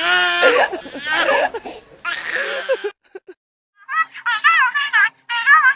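A baby laughing and giggling in wavering bursts. After a short pause, a run of short, high-pitched warbling sounds starts about four seconds in.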